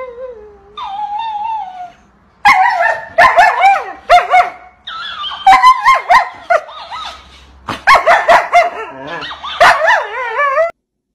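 Siberian husky howling and yowling in several bouts of wavering, rising-and-falling calls.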